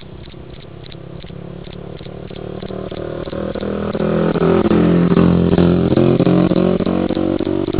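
Cricket chirping in short, evenly spaced pulses, about three to four a second. A motor vehicle's engine grows louder over the first four seconds and becomes the loudest sound, nearly drowning the chirps.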